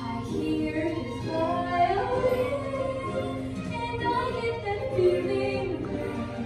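A woman singing a musical-theatre number in a stage production, over instrumental accompaniment.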